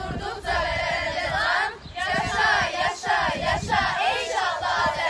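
A chorus of schoolgirls' voices in unison, high-pitched, in short phrases that break off about once a second.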